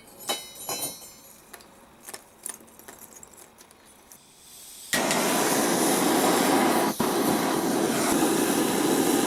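A few small metallic clicks and clinks, then gas hissing briefly and a gas forge burner lighting about five seconds in, running with a loud, steady rushing noise.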